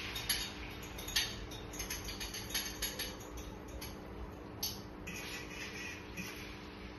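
A kitchen utensil scraping and tapping irregularly against a pan, chopping up eggs, over a steady low hum.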